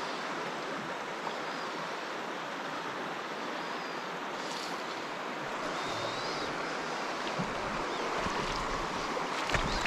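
River water running steadily over a shallow stony riffle, an even rushing sound.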